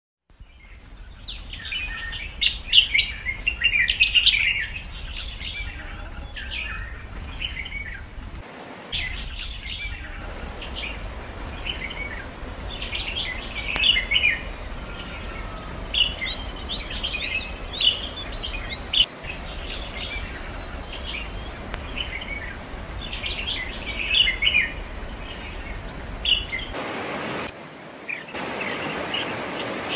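Many small birds chirping and trilling over a steady low rumble. About 27 seconds in, the rumble drops out and a steady hiss carries on under the chirps.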